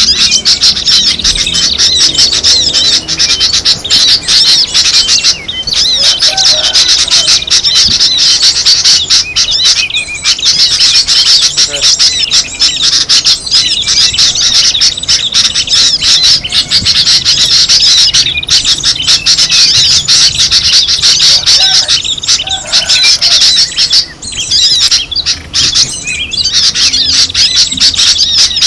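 Bird-lure track: a dense, loud chorus of many small songbirds chirping and twittering rapidly and without pause, layered high calls crowding over one another.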